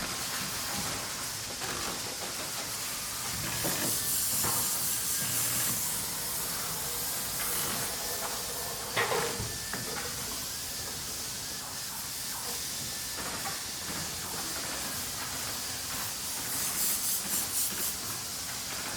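Factory manufacturing ambience: a continuous, mostly high hiss of machinery. Twice it rises into spells of rapid pulsing hiss, and there is a single sharp knock about nine seconds in.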